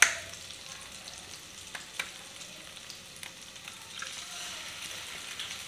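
Chopped garlic sizzling in melted margarine in a wok. A sharp tap comes at the very start as an egg is cracked, then a few light clicks, and the sizzle grows a little louder about four seconds in as the egg goes into the hot fat.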